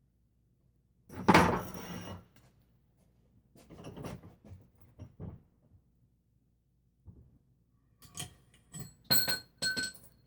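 Metal motorcycle fork parts being handled on a workbench. A loud clunk lasting about a second comes just after the start, then a few softer knocks, and near the end several sharp metallic clinks that ring briefly.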